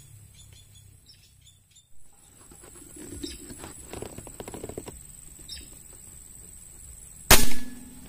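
Air rifle firing a single sharp shot about seven seconds in, after a few seconds of faint handling noise.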